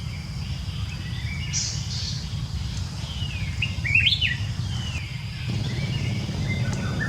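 A series of high-pitched chirping calls, most sliding downward in pitch, with a quick cluster of rising and falling chirps about four seconds in that is the loudest moment. A steady low rumble runs underneath.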